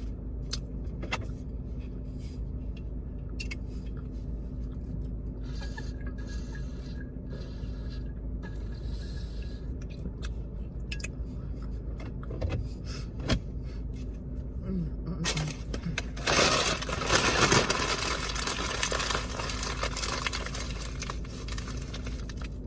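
Handling noises inside a parked car over a steady low hum: scattered small clicks and knocks, then a louder rustle about 16 to 20 seconds in.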